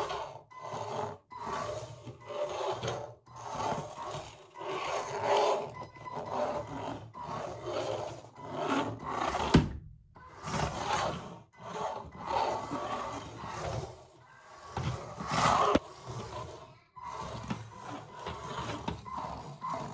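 A 3 lb beetleweight combat robot driving in short bursts across a hardwood floor. Its drive motors whine and its wheels rub on the wood, starting and stopping about once a second. There are two sharp knocks, one about halfway through and one later.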